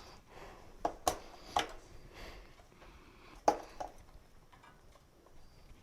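Handling of an animatronic monkey prop's parts while fitting its head: a few sharp knocks and clicks, the loudest about three and a half seconds in.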